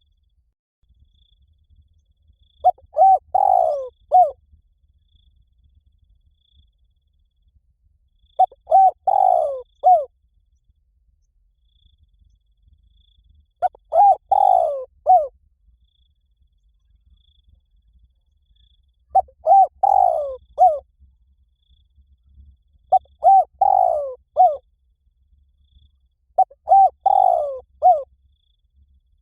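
Spotted dove cooing, six phrases a few seconds apart. Each phrase is a couple of short notes, then a longer falling note, then short closing notes.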